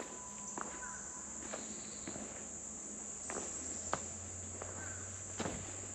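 Steady high-pitched chorus of insects in summer woodland, one continuous buzz, with a few faint footsteps.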